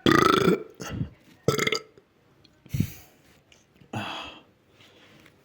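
A boy burping several times in a row, the first burp the longest and loudest, then shorter burps spaced out over the next few seconds.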